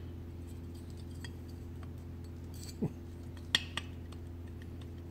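Light metallic clicks and scrapes as a nut grinder's rear grinding plate is rotated and lined up inside its aluminum casting, over a steady low hum. The sharpest click comes about three and a half seconds in.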